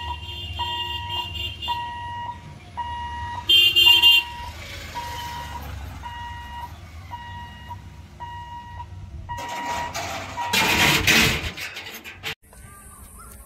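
Railway level-crossing warning buzzer beeping steadily about twice a second as the boom barrier is lowered. A brief loud blast cuts in about four seconds in, and a loud rush of noise comes around eleven seconds in. Near the end it gives way to a quieter steady high hiss.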